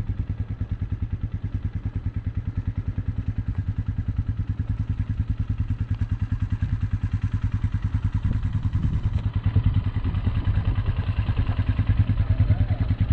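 Tesla Model 3 Performance driving, a low rumble of road and drive noise that pulses about five or six times a second and grows somewhat louder in the second half.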